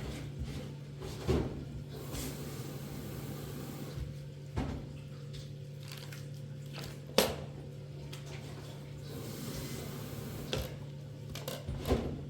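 A few separate knocks and clunks, the sharpest about seven seconds in, over a steady low hum.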